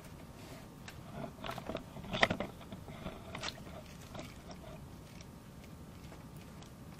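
Handling noise at a plastic cooler box as a caught fish is put in and the contents are moved about: crunchy rustling and light knocks, the sharpest knock about two seconds in.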